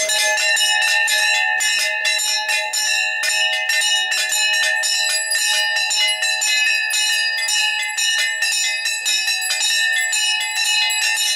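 Puja bell rung continuously in rapid, even strokes during worship, its ringing tones overlapping and never dying away.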